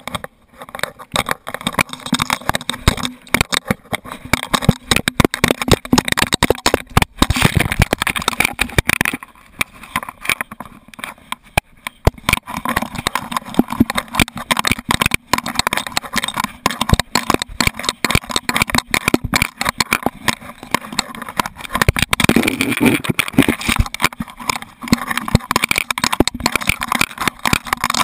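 Fast, irregular knocking and rattling from a GoPro HERO2 strapped to a running dog, the camera jostling against its mount and the dog's body with every stride.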